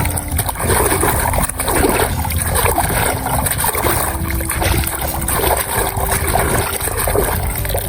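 Water sloshing and splashing in repeated strokes, about two a second, over faint background music.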